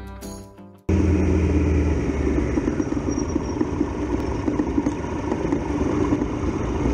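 Triumph Tiger Explorer XRx motorcycle's three-cylinder engine running steadily while riding, with wind and road noise on the bike-mounted camera. It cuts in suddenly about a second in, as a short bit of music fades out.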